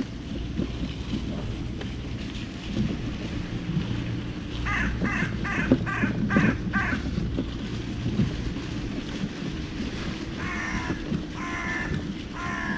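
Crows cawing: a quick run of about six caws around five seconds in, then more bursts of caws near the end, over a steady low rumble.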